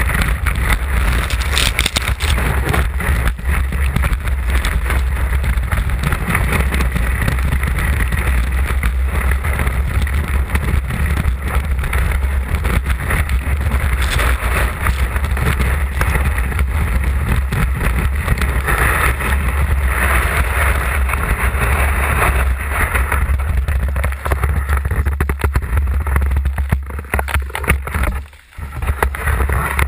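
Skis sliding and scraping over packed snow during a fast downhill run, with heavy wind rumble on a ski-mounted camera's microphone. The noise drops away briefly near the end as the skier comes to a stop.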